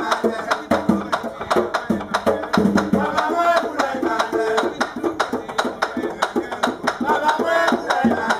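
Bèlè drum played by hand in a steady driving rhythm, with voices singing over it, the music that accompanies a danmyé fight circle.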